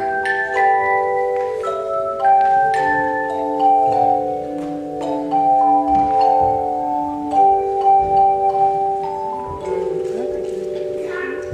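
An ensemble of tone chimes playing a melody and chords, the struck notes ringing on and overlapping as new ones come in.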